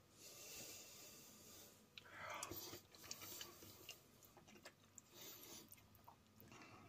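Faint chewing and mouth sounds of someone eating, with a few light clicks of a metal spoon against the bowl.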